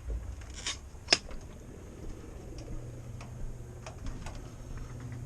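Garage door running: a low steady hum with scattered light clicks and ticks, the sharpest about a second in.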